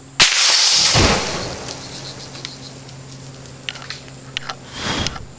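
A single rifle shot about a quarter second in, followed by nearly a second of rushing spray as the hit paint can vents into the fire, then a second, smaller rush near the end as it flares up.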